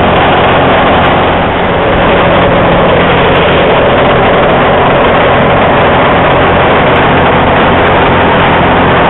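Light aircraft's piston engine and propeller running steadily, heard loud from inside the cockpit, a constant drone with a low hum under dense noise. The level dips briefly about a second and a half in.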